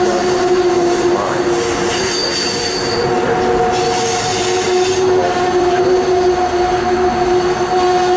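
Amtrak passenger coaches rolling slowly past on a curving track, their wheels squealing in several steady, high-pitched held tones over the rolling rumble.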